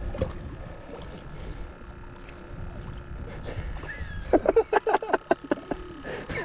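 Wind and small waves against a fishing boat's hull, with a faint steady hum. About four seconds in comes a quick run of short, sharp knocks and clatter.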